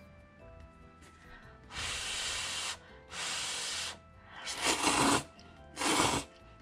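Soft background music with steady notes. About two seconds in come two even slurps of Nissin Yakisoba U.F.O. fried noodles, each about a second long, then three shorter, louder slurps.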